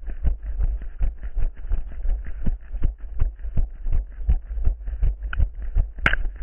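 Running footsteps at a steady pace, about three dull foot strikes a second, over a constant low rumble. A single sharp click comes near the end.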